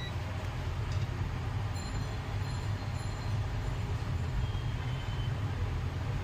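Steady low hum over a continuous rumbling noise, unchanging throughout.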